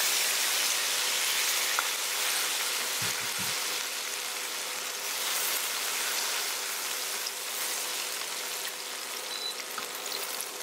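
Butter and lemon juice sizzling in a hot frying pan as a pan sauce cooks: a steady hiss that slowly dies down.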